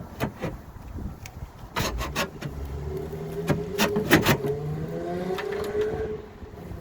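Clicks and knocks of hands and parts being worked inside a Range Rover Sport car door, with a drawn-out tone that rises slowly in pitch for about three seconds in the middle.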